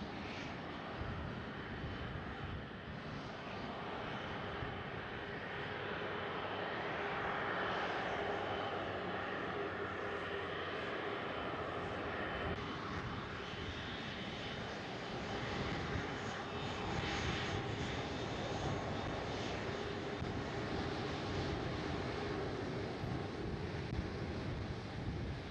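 Jet airliner's engines running as it passes the airport, a continuous steady rumble and hiss with faint steady whining tones, swelling a little a quarter of the way in.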